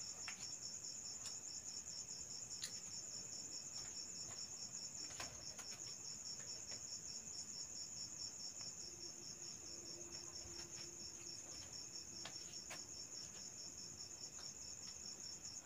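Crickets chirping in a steady, fast-pulsed high trill, faint, with a few soft ticks.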